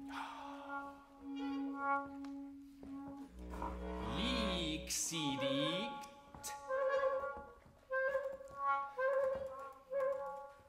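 Trumpet, trombone and bass clarinet playing contemporary chamber music. A held note gives way near the middle to sliding, swooping pitches over a low rumble and airy hiss, then a run of short detached notes.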